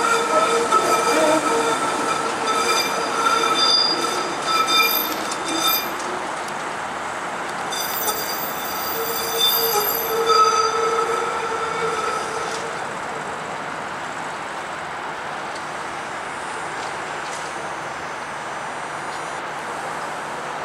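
Steel wheels of a CLRV streetcar squealing on a tight curve of loop track: a shrill squeal in several steady tones. It is strongest over the first six seconds and again from about eight to twelve seconds in, then drops to a quieter steady rolling noise.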